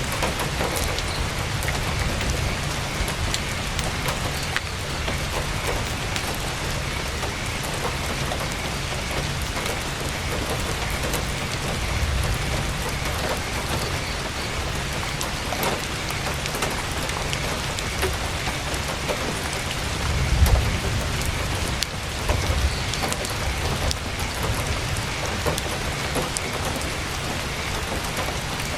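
Heavy rain on tent fabric: a steady hiss with many scattered sharp ticks over a low rumble, which swells briefly twice about two-thirds of the way through.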